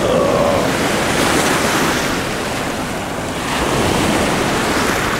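Ocean surf breaking and washing up a sandy beach, a steady rush that swells twice.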